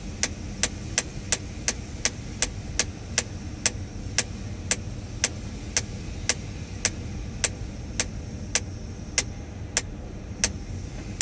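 Machinery running steadily in a tower crane's cab, with sharp regular clicks over it. The clicks come about three a second at first and slow to about two a second later on.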